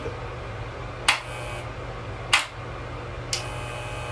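Electric hair clippers switched on about three seconds in, then buzzing steadily. Before that, a steady low hum and two short, sharp breathy bursts.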